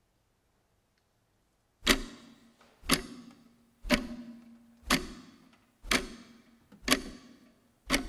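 Loud, sharp clock-like ticks that start about two seconds in, after near silence, and repeat steadily about once a second. Each tick has a low thud and a brief ringing tail.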